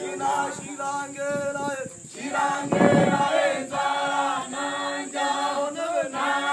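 Hadzabe dancers singing together in an unaccompanied call-and-chant dance song, several voices overlapping on held, shifting notes. It grows loudest just under halfway through.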